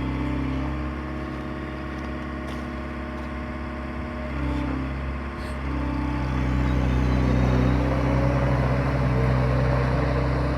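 Diesel engine of a 2005 Liebherr A316 Litronic wheeled excavator running steadily. About halfway through, the engine note changes and grows louder, with a faint rising whine.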